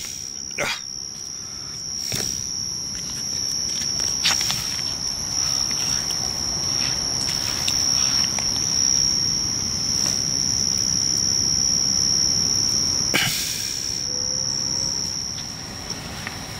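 Crickets trilling in one steady, unbroken high-pitched tone at night, over rustling and a few sharp knocks from the moving camera.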